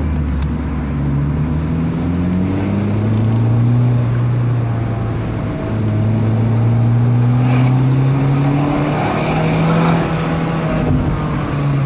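Honda Fit Hybrid's 1.5-litre four-cylinder engine pulling through a Kakimoto aftermarket muffler: the note climbs in pitch, dips briefly about halfway, climbs again and eases off near the end, with tyre and road noise beneath. Not a real booming racket; the exhaust sounds well restrained.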